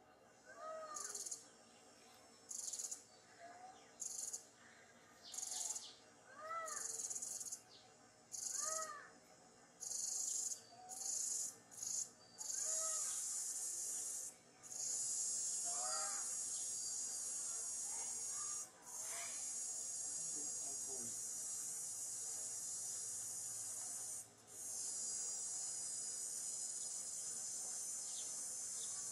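Forest insects buzzing at a high pitch, first in short bursts about a second apart, then merging into a steady drone about twelve seconds in, with two brief breaks. Over this, a short rising-and-falling call repeats every two seconds or so.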